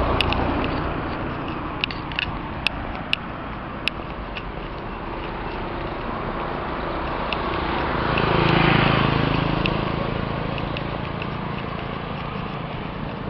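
A car drives past, its tyre and engine noise swelling and then fading about eight to nine seconds in, over a steady wash of open-road traffic noise. A few sharp clicks come between about two and four seconds in.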